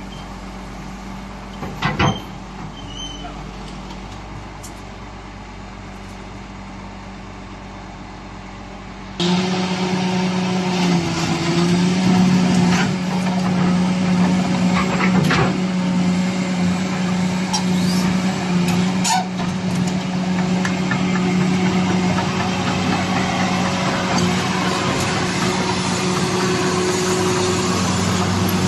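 Heavy excavator diesel engine running steadily, with a sharp knock about two seconds in and a sudden jump to a louder, closer engine sound about nine seconds in.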